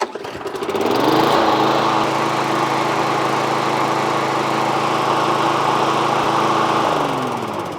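Briggs & Stratton push lawn mower engine starting, revving up over about a second, then running steadily at one pitch. Near the end it is shut off and winds down. It is a test run after a fresh tune-up (new oil, spark plug and air filter), and the engine runs smoothly.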